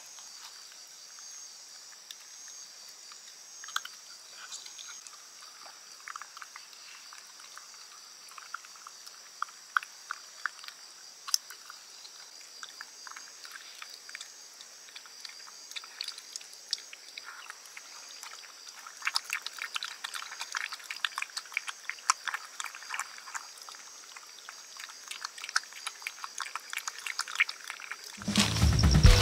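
A Shiba Inu eating wet dog food from a ceramic bowl: irregular small wet clicks and smacks of chewing and licking, coming thicker in the last ten seconds, over a steady high-pitched background hiss.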